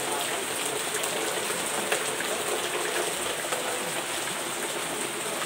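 Heavy rain falling on a clay-tiled roof and pouring off the eaves: a steady hiss of rain.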